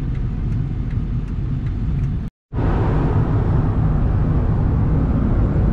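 Steady road and engine noise inside a dually pickup truck's cab while it drives on the highway. The sound drops out completely for a moment a little over two seconds in, then returns at the same level.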